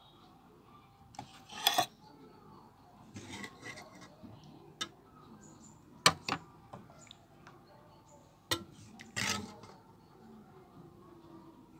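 Metal serving spoon clinking and scraping against a ceramic plate of curry, in a handful of separate knocks and scrapes, the sharpest about six seconds in.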